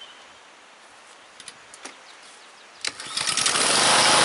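Husqvarna LC 153V lawn mower's Honda engine starting: a few faint clicks, then about three seconds in it fires and quickly runs up to a steady running speed.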